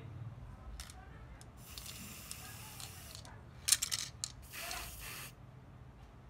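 Aerosol spray can spraying a coat onto a small metal keychain, in separate bursts of hiss. A long spray starts about a second and a half in, then a quick run of short sharp puffs, the loudest, near four seconds, then another spray of about a second.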